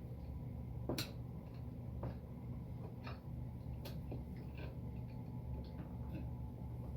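Light, irregular clicks and taps of screws and a small hand tool as the metal frame pieces of a laser engraver kit are screwed together, roughly one click a second, over a steady low hum.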